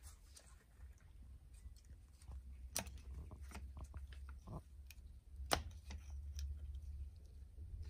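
Faint metallic clicks and scrapes of needle-nose pliers pressing a wrist-pin circlip into its groove in a motorcycle-type piston, with two sharper clicks about three seconds in and about five and a half seconds in, over a low steady hum.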